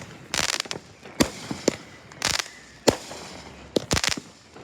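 Fireworks going off: a run of sharp bangs, unevenly spaced, with a few short hissing bursts among them and a quick cluster of bangs near the end.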